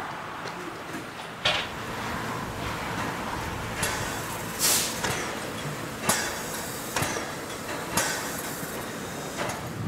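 Harz narrow-gauge 2-10-2T steam tank locomotive 99 7241-5 letting off sharp bursts of steam about once a second, steam venting from its cylinders.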